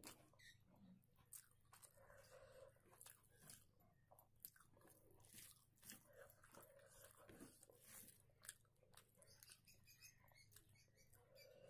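Faint, close-up sounds of eating rice and egg curry by hand: fingers mixing the rice on a plate and wet chewing, a run of soft clicks and smacks.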